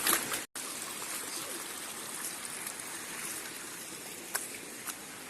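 Steady rush of a forest stream's flowing water, with two short clicks near the end. The sound drops out for an instant about half a second in.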